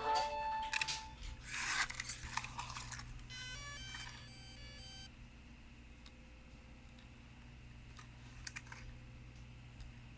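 Small clicks and rustling from objects being handled, with a short run of stepped electronic tones about three seconds in that stops suddenly about two seconds later.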